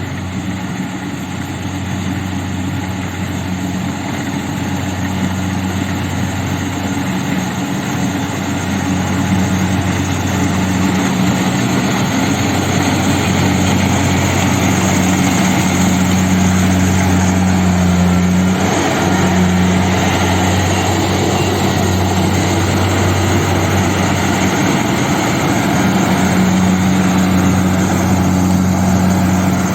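Kubota rice combine harvester's diesel engine and threshing machinery running steadily with a deep hum, growing louder over the first ten seconds or so and then holding even.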